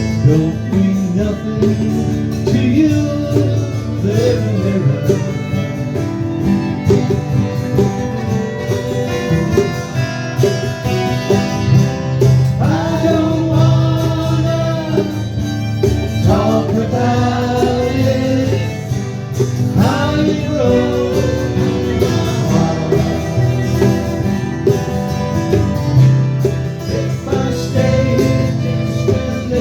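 Live country-folk band playing an instrumental break: guitars strumming under a lead line that slides up and down in pitch.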